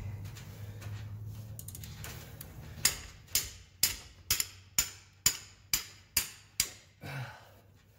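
Hammer striking a wrench on a 24 mm socket to shock loose the harmonic balancer bolt on a 7.3L Powerstroke diesel: about nine sharp blows, roughly two a second, starting about three seconds in.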